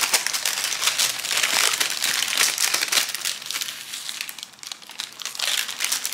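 Baking paper crinkling and rustling as it is opened out by hand and a spatula is slid across it under the bagels, a dense run of small crackles.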